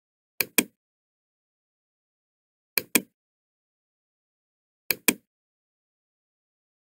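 Computer mouse double-clicking three times, about two seconds apart; each double-click is two sharp clicks about a fifth of a second apart.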